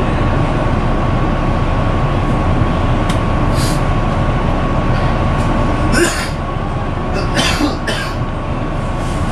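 Cabin drone of a Volvo B9TL double-decker bus standing at idle, its 9.4-litre Volvo D9B engine and air-conditioning running steadily with a faint steady whine. A few short hisses sound about three and a half, six and seven and a half seconds in.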